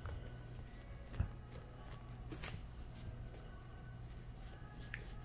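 Faint handling sounds of soft squishy toys being picked up and held up: a few light taps and rustles, over a low steady hum.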